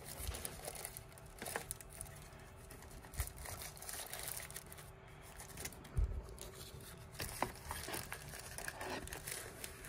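Thin wrapping rustling and crinkling as a small boxed device is pulled out of a cardboard packaging insert, with a few light knocks and taps of the box against the cardboard.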